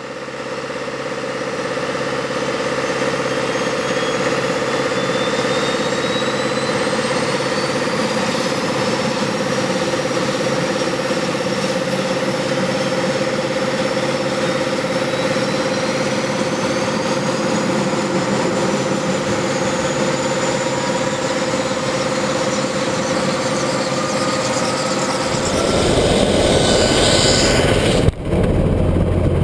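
Bell 412EP helicopter's twin turboshaft engines (Pratt & Whitney PT6T Twin-Pac) starting up: a steady hum with a high whine that rises slowly in pitch as the turbines spool up. About 25 seconds in the sound grows louder and noisier, with a brief dropout just after.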